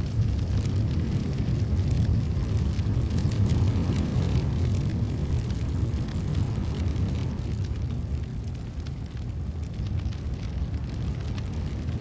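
Large fire burning: a deep steady rumble with scattered crackles and pops, slowly fading toward the end.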